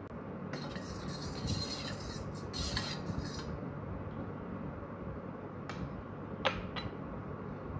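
Faint clinks and rubbing of a stainless steel bowl holding turmeric water, with a soft hissy rustle over the first few seconds and three sharp clicks near the end, over a steady low hum.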